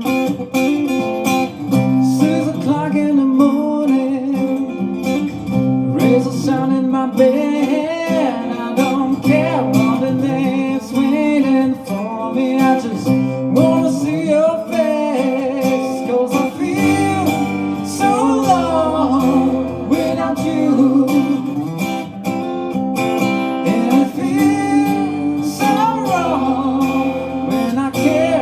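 Live song performance: a strummed guitar with a singer's voice over it.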